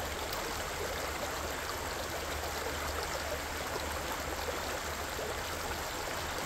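A stream running steadily: a continuous, even rush of flowing water.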